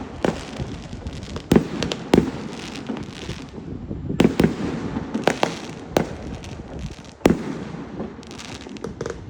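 Fireworks going off: sharp bangs at irregular intervals, with loud ones about every second or so, over continuous crackling.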